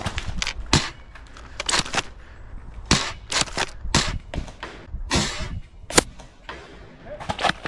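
Foam-dart blasters firing: a string of sharp pops at irregular intervals, some close together, some a second or more apart.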